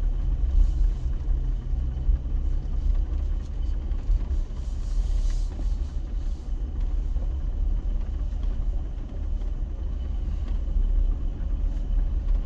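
Jeep driving over a rough off-road track: a steady low rumble of engine and tyres, with a few faint knocks.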